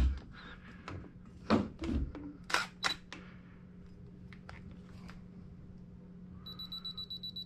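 A few light knocks as a bowl is shifted on a placemat. About six and a half seconds in, a digital SLR camera starts giving a high, rapidly pulsing electronic beep.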